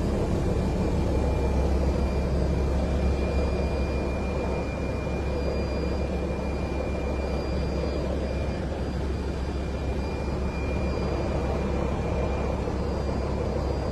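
Steady aircraft engine noise with a deep rumble and a faint high whine, as heard from on board while aerial footage is recorded.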